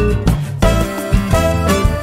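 Upbeat background music with a steady beat, in a Latin, salsa-like style.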